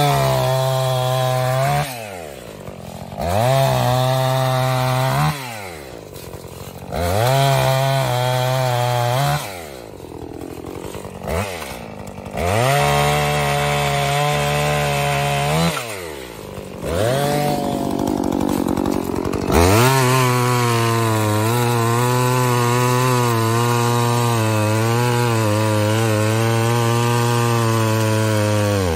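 Efco MT 5200 51.7cc two-stroke chainsaw revving up to full throttle and dropping back toward idle, over and over, as it cuts into logs. Near the end it holds full throttle for about nine seconds, its pitch wavering under the load of the cut.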